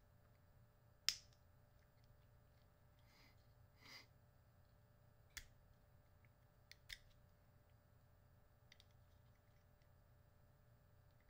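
Small plastic FPV camera parts being handled and fitted together by hand: one sharp click about a second in, a brief scraping rustle around four seconds, then a few quieter clicks, two of them close together.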